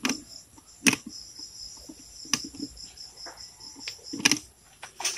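Steady high-pitched insect chorus, with four sharp clicks and knocks as the telescopic pole pruner's pole and cutting head are handled, about a second in, midway, and twice near the end.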